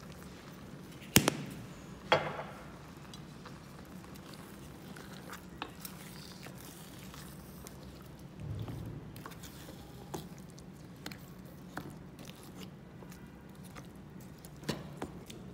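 Wooden spoon stirring a thick curry of butternut chunks in a stainless steel pan: soft squelches and scrapes with scattered small clicks. Two sharp knocks come about one and two seconds in, the second ringing briefly.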